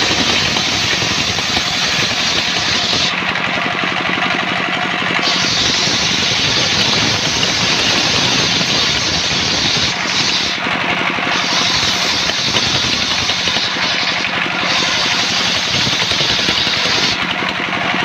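Homemade circular sawmill's large blade ripping albasia (sengon) boards into 5x5 rafters, with a steady hum from the machine underneath the hissing cut. The cutting noise drops away briefly a few times, then comes back.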